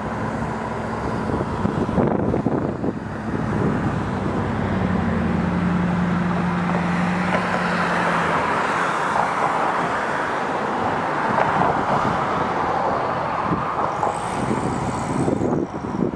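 VIA Rail F40PH-2 diesel-electric locomotive, with its EMD 16-cylinder two-stroke engine, approaching with its train; engine and wheel-on-rail noise grow louder. A steady low tone is held for about three and a half seconds a few seconds in.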